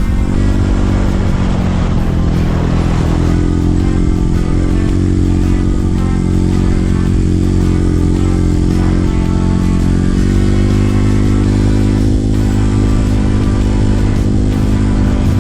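Trail motorcycle engine running loud and steady, its pitch shifting up and down a little as the throttle changes.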